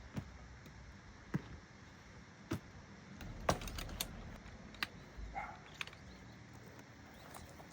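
Scattered sharp clicks and light knocks, about seven spread over several seconds, from tent fittings and camping gear being handled.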